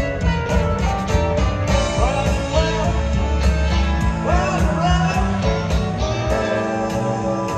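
Live rock band playing a mid-tempo song with electric guitar, drums, bass, keyboards and pedal steel guitar, and a man's voice singing over it.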